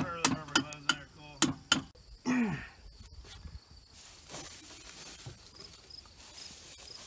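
Sharp metal clicks or knocks, about three a second, for the first two seconds as a hand wrench is worked on a bolt of the tractor's steering cylinder at the front axle. A short low voice sound follows, then faint insects chirping steadily outdoors.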